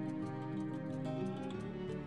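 Gentle instrumental background music: held notes over a light, evenly repeating ticking beat.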